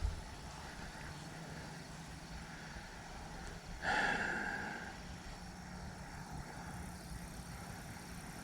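A single fishing cast about four seconds in: a sharp swish, then line running off the reel and fading over about a second. A faint steady low hum lies underneath.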